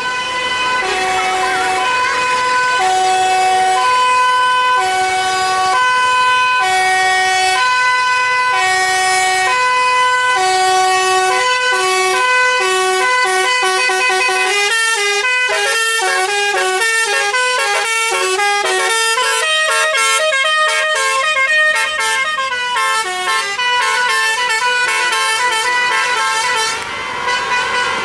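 Multi-tone telolet horn playing a tune: long clear notes alternating about once a second, then from about halfway a fast run of quick, changing notes.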